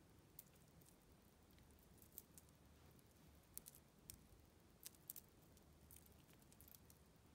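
Near silence: faint room tone with a few scattered, soft, sharp ticks.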